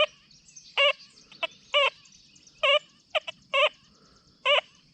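XP Deus 2 metal detector sounding a short warbling target tone about once a second as its coil sweeps back and forth over a US nickel, with an iron fridge magnet lying above it. Six beeps in all, with a weaker one just after three seconds.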